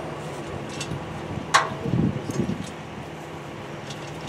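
A single sharp metallic clank from boat-trailer hardware with a short ring, followed by a dull low thump, over a faint steady hum.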